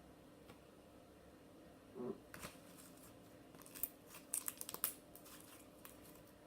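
Butter slime (slime mixed with clay) being stretched and squeezed by hand, giving a faint run of sticky clicks, pops and crackles over about three seconds. A short wavering pitched sound comes just before them.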